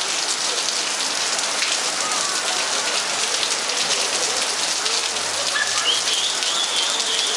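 Steady rain falling on hard surfaces: an even hiss with many individual drop impacts.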